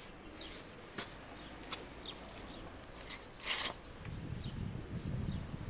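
Small birds chirping in short calls, with footsteps on sandy ground and a louder scuff about three and a half seconds in, then a low rumble near the end.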